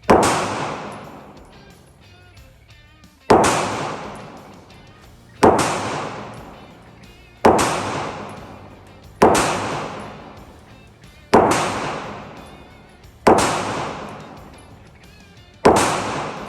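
Handgun fired eight times in slow aimed fire, about two seconds between shots, each shot echoing and dying away over a second or more. Faint background music runs underneath.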